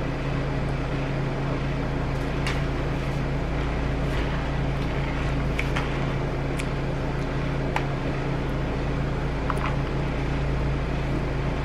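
Steady mechanical hum under an even rushing noise, with a few faint clicks.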